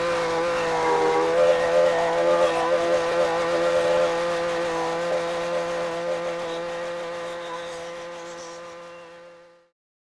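Husqvarna 128LD string trimmer's small two-stroke engine running steadily at high speed, its pitch holding even, then fading away near the end.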